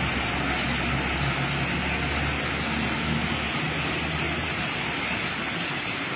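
Steady rain hiss with the low engine rumble of heavy trucks crossing a highway bridge; the rumble eases off near the end.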